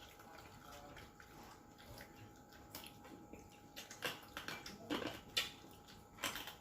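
Faint clinks of cutlery against plates and dishes during a meal, with a few sharper clicks in the second half.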